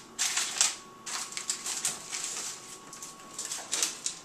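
Plastic flatbread packaging being handled, crinkling and rustling in irregular crackly bursts.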